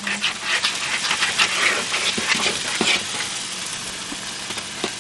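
A metal spoon stirring and scraping through a dry flour-and-salt mixture in a mixing bowl: a steady gritty scraping made of many quick strokes.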